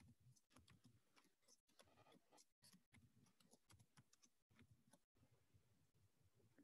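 Near silence: faint room tone with scattered faint clicks.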